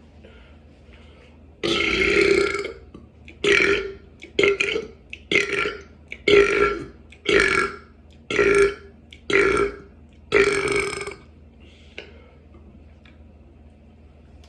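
A person belching deliberately, about nine loud burps in a row at roughly one a second; the first and last are longer and drawn out, the ones between short.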